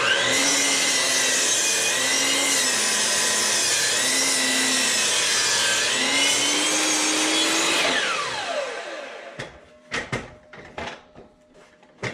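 Dewalt 12-inch mitre saw starting up and cutting through the end of a 6x6 wooden post, the motor's pitch dipping and recovering as the blade bites into the wood. About eight seconds in it is switched off and spins down with a falling whine, followed by a few knocks.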